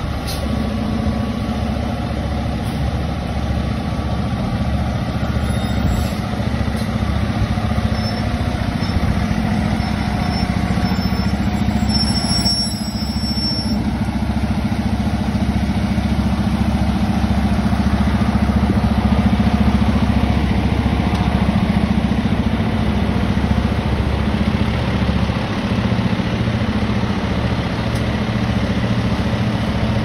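Fire truck's diesel engine idling steadily, a low, even drone.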